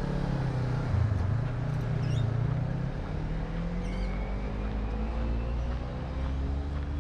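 Street traffic: a road vehicle's engine running, its pitch rising slowly over several seconds as it accelerates. A few faint, short high chirps sound above it.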